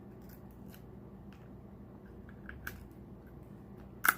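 King crab leg shell being cracked and pulled apart by hand: a scatter of small clicks and snaps, with one loud sharp crack near the end.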